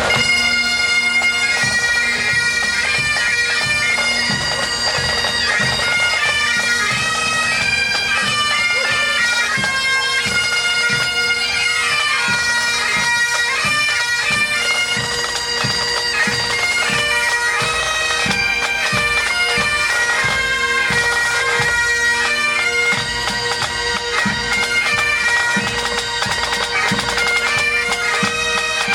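Great Highland bagpipe playing a tune: the chanter melody steps over the steady drones, with drum beats underneath.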